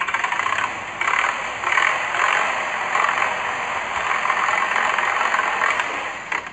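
Tractor engine running with a steady rattling clatter; it starts abruptly and cuts off just as abruptly after about six and a half seconds.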